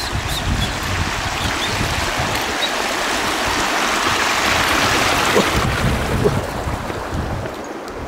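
Shallow mountain stream rushing over rocks and stones. It swells to its loudest about halfway through and eases off near the end.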